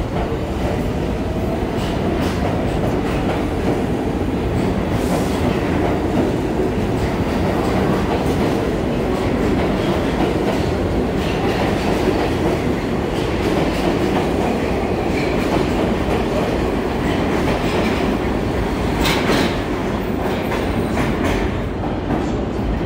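Kawasaki R62 subway train pulling out of an underground station, its cars running past close by with a steady loud rumble of wheels on rail. The sound eases a little near the end as the last car leaves.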